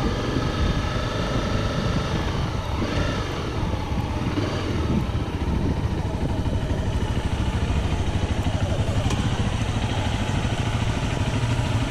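Off-road motorbike engine running at low speed as the bike rolls slowly over gravel, settling to an idle near the end.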